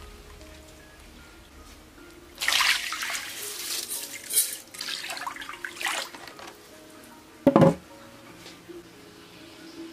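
Washed rice and water poured from a metal bowl into an iron wok in several splashing pours, then a wooden wok lid set down with one loud knock near the end.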